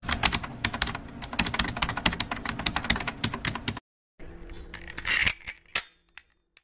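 Computer-keyboard typing sound effect: a fast run of sharp key clicks for nearly four seconds that stops abruptly. About a second later comes a short burst of hiss.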